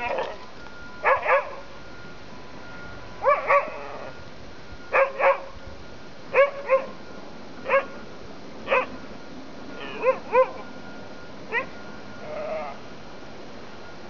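Siberian huskies barking in play, with short calls mostly in quick pairs, repeated every second or so.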